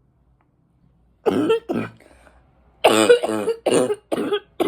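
A woman's deep, barking coughs rattling in the chest: two about a second in, then a run of five near the end. She puts the cough down to allergies and smoking.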